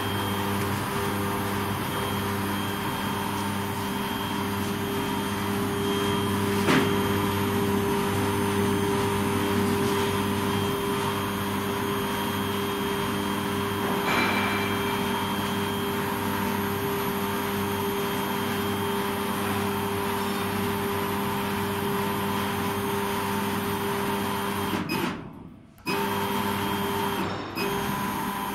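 Laser engraving machine running with a steady electrical hum and whir. There is a single click about seven seconds in, and the sound cuts out for about a second near the end.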